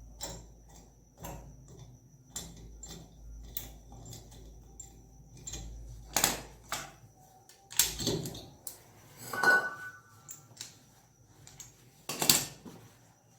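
Scattered clicks, taps and a few louder knocks of tools and metal parts being handled during fridge repair work, over a low hum that stops about seven and a half seconds in.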